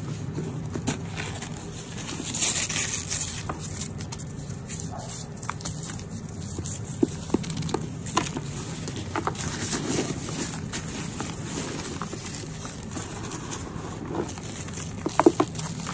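Hands digging into and squeezing dry, powdery dirt with small pebbles and dried leaves in a bucket: gritty crunching and crackling with scattered sharp clicks. There is a louder, hissing crunch about two seconds in and a few sharp clicks near the end.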